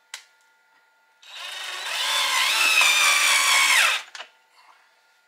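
Power drill driving a screw into a wooden 2x4, spinning up to speed for about three seconds under load, its pitch falling as it stops, with a click just before and just after.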